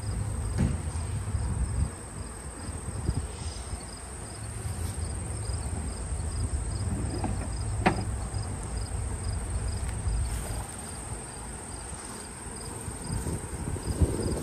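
Open-field ambience: insects in the grass make a steady high drone and a high chirp that repeats at an even beat, over a low rumbling noise. A single sharp click about eight seconds in.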